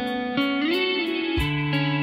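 Background music: a guitar tune with a note sliding up, over a soft beat of about one low thump a second.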